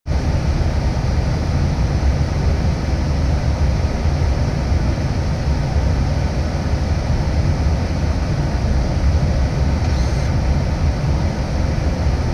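Steady flight-deck noise of an Airbus airliner on final approach: a constant rush of air with a deep rumble underneath, unchanging throughout.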